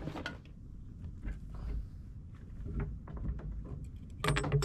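Scattered light knocks and clunks over a low rumble, with a louder cluster of knocks near the end, on the deck of a wooden fishing boat.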